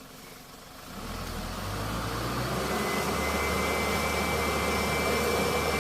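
Dump truck engine picking up about a second in and held at steady revs, with a thin high whine over it, then dropping away near the end.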